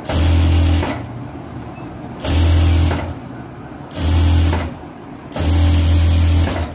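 Sewing machine running in four short bursts, each under a second to about a second long, with brief pauses between. It is stitching a quarter-inch folded hem on a blouse sleeve.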